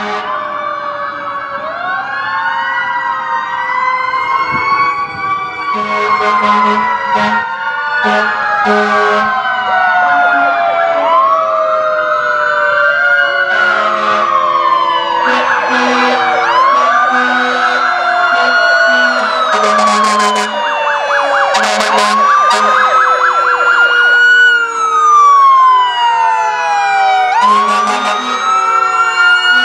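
Fire engine and fire department SUV sirens sounding together, several wails rising and falling every few seconds with stretches of fast yelping, growing louder as they approach. Repeated blasts of the fire engine's air horns sound over the sirens.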